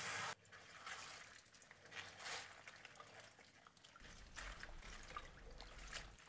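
Tap water pouring onto spinach leaves in a stainless steel colander, cutting off abruptly just after the start. Faint drips and soft splashes follow as hands swish the leaves through a bowl of water.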